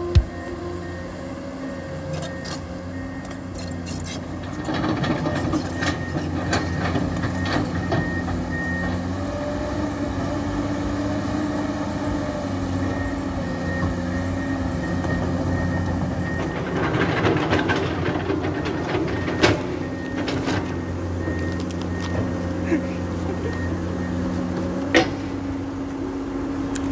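Heavy diesel machinery at work, with the engine running steadily and its pitch rising and shifting as it takes load. An evenly repeating beep sounds on and off, and there are a few sharp knocks.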